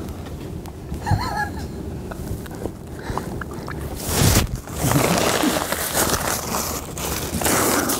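A man coughing and gasping hard into a napkin from the burn of very spicy food. The loud, rasping bursts start about four seconds in.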